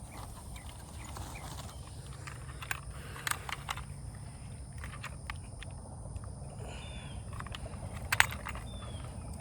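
Outdoor riverbank ambience: a steady high insect hum over a low rumble, with scattered clicks and knocks, the sharpest about eight seconds in. A few short falling bird chirps come in the second half.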